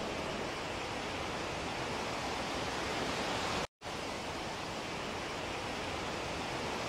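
Steady, even hiss with no distinct source, briefly cutting out to silence about three and a half seconds in.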